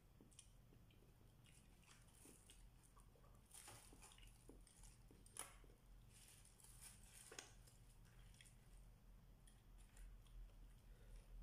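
Faint chewing and soft crinkling of aluminium foil and a plastic bag as food is eaten by hand, with a few sharp little clicks, over a low steady hum.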